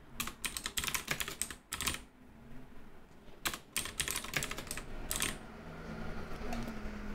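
Typing on a computer keyboard: two short bursts of quick keystrokes, the second starting about three and a half seconds in.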